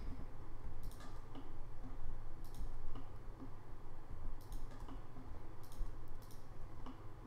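Computer mouse clicking about half a dozen times at uneven intervals as faces are selected one after another, over a low steady hum.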